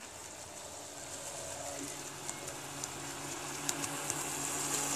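Radio-controlled model speedboat's electric motor humming at a steady, low pitch as the boat runs across the water, getting gradually louder as it comes closer.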